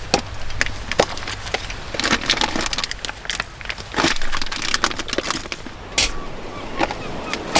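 Plastic food packaging being handled and unwrapped: irregular crinkling and clicking, with denser crackling bursts around two, four and six seconds in.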